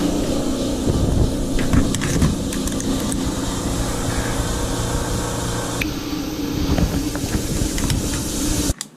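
A machine running steadily with a hiss and a few scattered clicks; it cuts off suddenly near the end.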